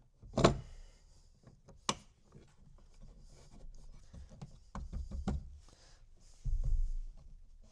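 Tools and parts being handled during the install: a sharp knock about half a second in, another near two seconds, a few lighter knocks and clicks around five seconds, and a low thump near seven seconds.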